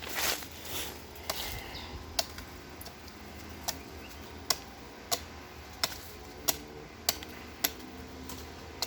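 A blade (machete) chopping a cut forest vine stem in short, sharp strokes, about one every 0.7 s, trimming its end to a point so the sap can drip out. A brief rustle of handling comes in the first second.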